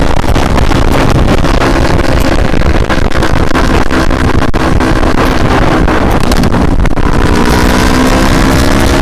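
Motorcycle engine running under way, heard through heavy wind buffeting on the microphone; about seven seconds in, the engine note climbs steadily as the bike accelerates.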